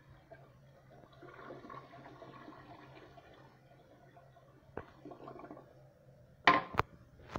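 Water in a Mansfield Alto toilet bowl swirling and trickling faintly as a flush finishes. Near the end come a few sharp knocks, louder than anything else.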